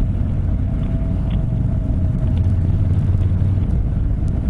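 Honda NC750X motorcycle riding at road speed: a steady low rumble of its parallel-twin engine mixed with wind and road noise.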